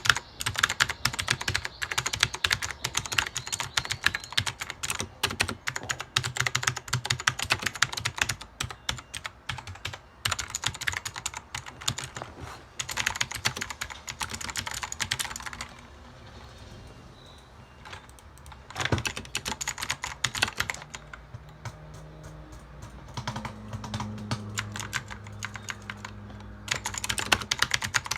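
Rapid typing on a computer keyboard, a dense clatter of key clicks in long runs, broken by two pauses about halfway through and near the end, in which a faint low hum is heard.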